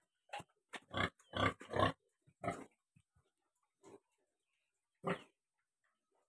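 Pigs grunting in short separate calls. There is a quick run of three loud grunts about a second in, then single grunts spaced further apart.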